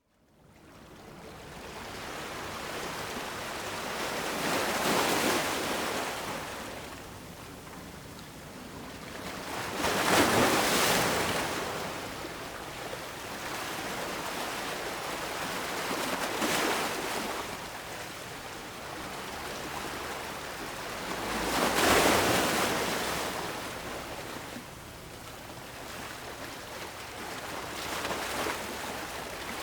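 Ocean waves breaking on a beach and washing back, a rushing surge every five or six seconds, with quieter hiss between. The sound fades in from silence at the start.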